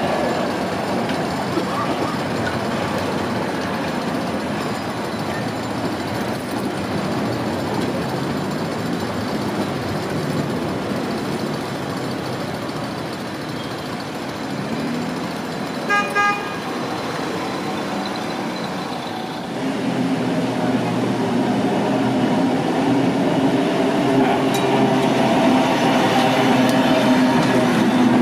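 Street tram passing on city street track amid traffic noise, with two short horn toots a little past halfway. Near the end a louder, steady low hum as an old tram runs close by.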